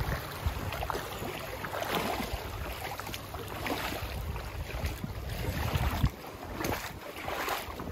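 Wind buffeting the microphone: an uneven low rush, with a few faint irregular knocks through it.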